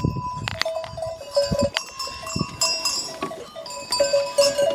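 Many bells on a flock of sheep and goats ringing and clanking at different pitches as the animals jostle, with some goat or sheep bleating mixed in.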